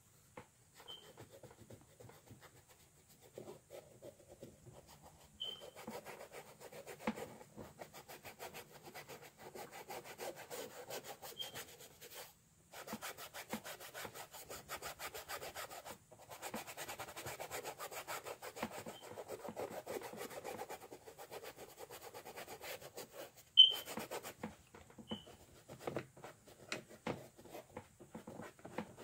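Paintbrush scrubbing acrylic paint across a canvas in quick repeated strokes, a dry rubbing sound with short pauses. One sharp tap about three quarters of the way through is the loudest sound.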